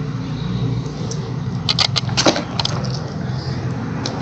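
A few sharp clicks and taps from an HDMI cable and its plug being handled, bunched about halfway through, over a steady low hum.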